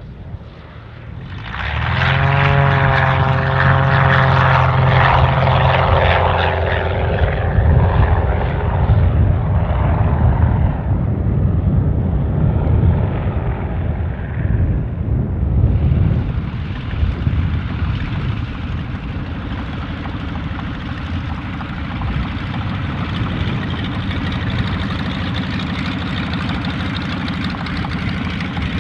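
Single-engine light aircraft's piston engine and propeller going to full power about two seconds in for the take-off run, then fading as the plane climbs away. About sixteen seconds in the sound changes to a steady, lower engine note: a Yak-52's nine-cylinder radial engine running at low power while taxiing.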